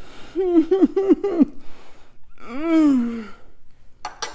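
A woman's wordless reaction to the burn of a chewed serrano pepper: a quick run of short hooting gasps, then one long falling 'ooh'. A single sharp knock comes near the end.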